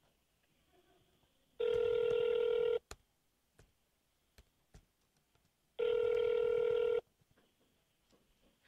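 Telephone ringback tone over a smartphone's speakerphone: two rings, each a little over a second long, about four seconds apart, the sign of a transferred call ringing through to an extension.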